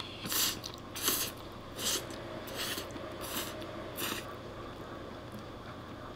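A person slurping spaghetti in an egg-and-cheese carbonara-style sauce: about six short, quick slurps, roughly one every 0.7 seconds, over the first four seconds.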